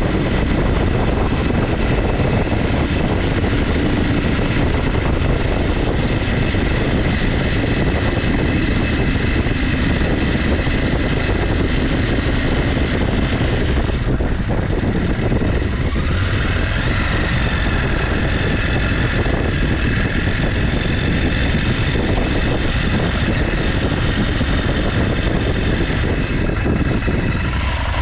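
KTM 890 Adventure's parallel-twin engine running steadily at low road speed, under a heavy rumble of wind on the helmet microphone. The engine eases off near the end as the bike slows.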